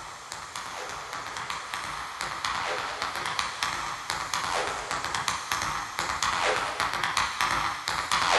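Opening of a nu-skool breakbeat track: a fast drum loop of sharp, crisp hits, thin in the bass, growing steadily louder.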